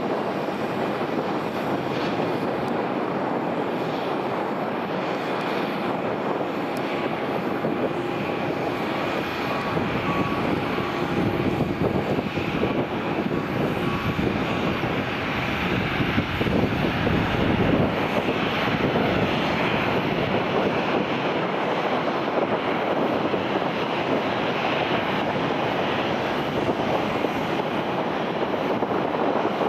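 Boeing 737-800's CFM56-7B jet engines running as the airliner slows down the runway after landing, a continuous roar that grows louder around the middle as it passes closest, with a faint steady whine in the first half.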